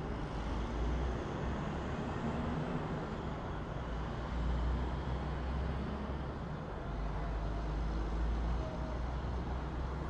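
City traffic ambience: a steady low rumble of passing cars and other vehicles.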